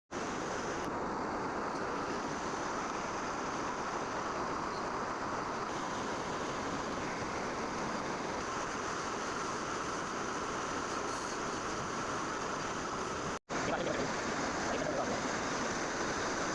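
Metalworking machine tool running steadily in a workshop, a constant noisy hiss with no clear rhythm. The sound drops out for an instant about three-quarters of the way through, then carries on as before.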